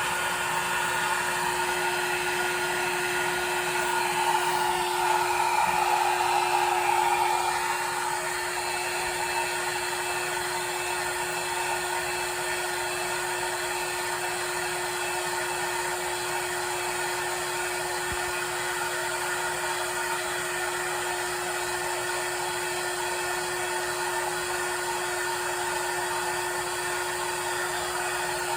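Hair dryer blowing steadily on a long-haired cat, with a constant hum under the rush of air. It gets louder for a few seconds about four seconds in, then settles back.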